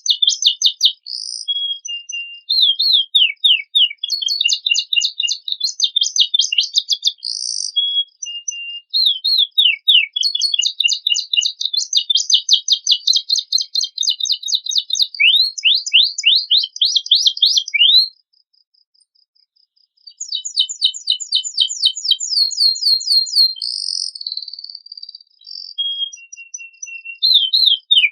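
Domestic canary singing a long, varied song of rapid trills and sweeping rolled phrases, pausing for about two seconds roughly two-thirds of the way through before starting again.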